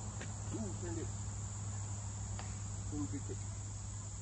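Steady high-pitched drone of an insect chorus, with a low steady hum beneath it and two faint short chirps, about a second in and again around three seconds.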